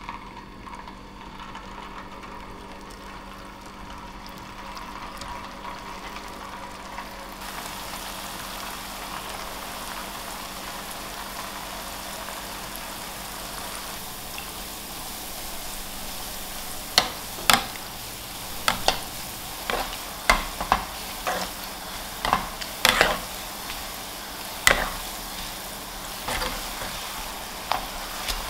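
Balls of potato dough deep-frying in a pan of hot oil: a steady sizzle that grows louder and brighter about seven seconds in. From a little past halfway, a metal mesh skimmer stirring the balls knocks and clinks sharply against the pan a dozen or so times.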